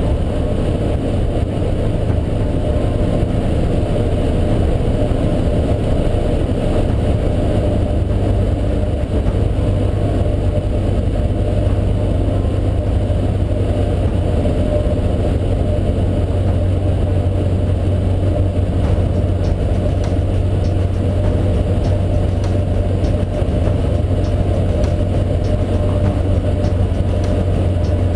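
Cessna 152's four-cylinder Lycoming engine and propeller heard inside the cabin, a steady drone with a low hum that does not change, as the aircraft comes in on its landing approach.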